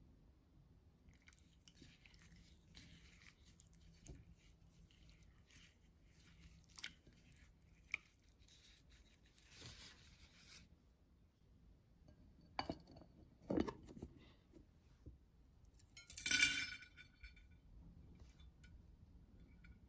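Quiet kitchen handling sounds: soft wet noises as chicken pieces are worked through a thick marinade in a glass bowl, then a few light knocks. Near the end comes a short, louder rush of water poured into a ceramic dish holding bamboo skewers.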